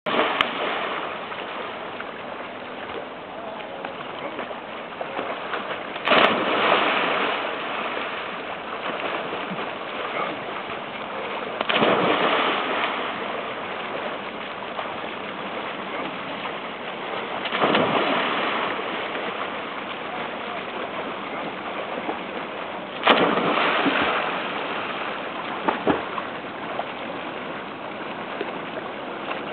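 Swimmers jumping one at a time off a wooden dock into lake water: five loud splashes about six seconds apart, each fading over about a second, over a steady wash of water noise.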